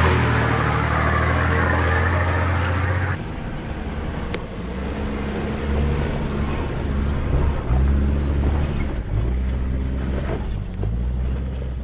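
Nissan Patrol four-wheel drives' engines working under load up a steep rocky track: first the intercooled turbo-diesel ute's engine running steadily, then about three seconds in a second Patrol's engine, its revs rising and falling as it climbs over rock steps.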